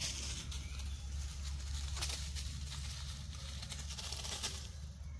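Dry leaf litter crackling and rustling underfoot in irregular crunches, over a steady low rumble.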